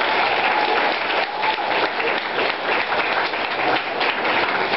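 Small audience applauding, a steady dense patter of many hands clapping.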